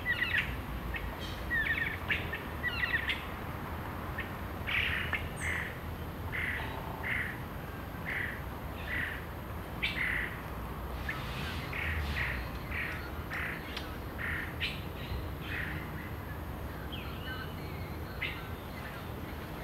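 Forest birds calling: a long series of short, sharp notes, repeated about once or twice a second, thinning out near the end.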